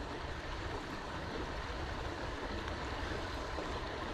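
Steady rush of moving water, with low wind rumble on the microphone.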